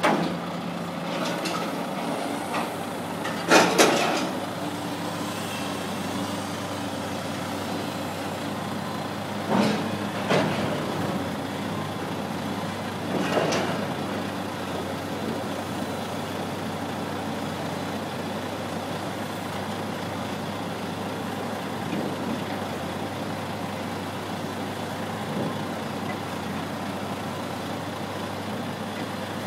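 Heavy diesel log-handling machinery running steadily, with several sharp knocks of logs being gripped and dropped by a grab in the first half.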